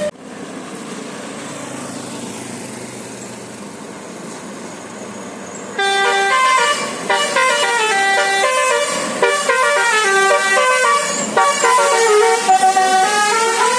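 Steady background noise for the first few seconds. Then, about six seconds in, a bus's basuri telolet musical air horn starts playing a melody of stepping notes and keeps playing it.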